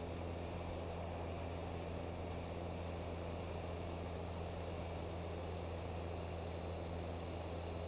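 Piper Cherokee's single engine and propeller droning steadily in flight, faint and low, with a thin steady high electronic whine on top.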